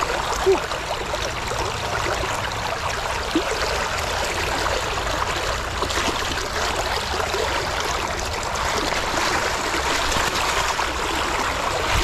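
River current flowing and rushing steadily as an even hiss of water, with two short sharp taps, one about half a second in and one a few seconds later.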